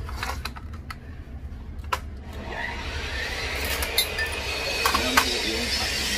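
Clicks and knocks from a Paslode cordless framing nailer being handled and its nail magazine worked, without firing, over a steady hiss that rises in about two and a half seconds in.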